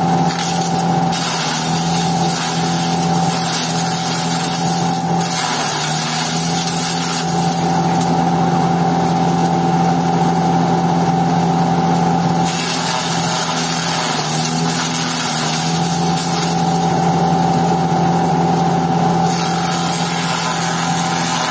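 Hammer-type chaff cutter, electric-motor driven, running with a steady hum while dry stalks are fed in and shredded. A harsh, hissing cutting noise comes and goes as each bundle goes through.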